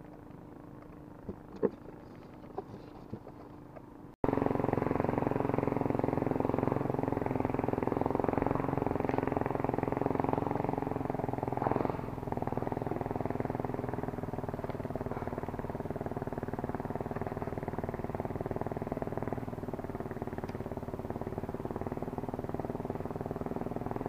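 A few faint clicks, then about four seconds in a steady motor drone starts suddenly and runs on evenly, a little quieter after about twelve seconds.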